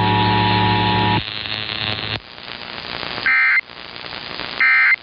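Emergency Alert System two-tone attention signal (853 and 960 Hz) sounding steadily for about the first second and cutting off, followed by radio static and then two short bursts of digital EAS data tones a little over a second apart, the short pattern of the end-of-message code.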